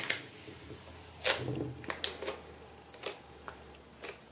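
Sticky adhesive wrapping being picked at and peeled off a pair of 12 V 9 Ah sealed lead-acid batteries: scattered small clicks and crackles, with one longer, louder crackle a little over a second in.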